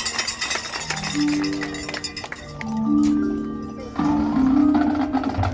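Live music from a competitive marching ensemble: overlapping held low chords, with a few sharp percussion hits.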